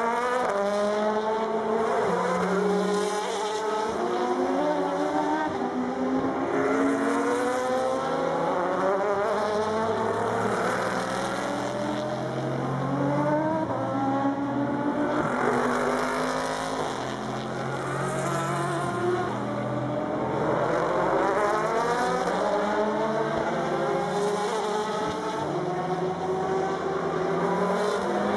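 Le Mans prototype and GT race cars accelerating out of a slow corner one after another. Their engines rise in pitch through the gears in repeated stepped sweeps, several cars overlapping continuously.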